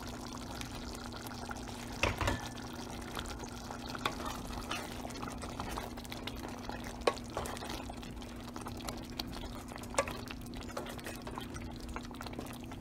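A wooden spoon stirring thick coconut curry in a steel pot: soft wet sloshing with a few light knocks of the spoon against the pot, over a steady low hum.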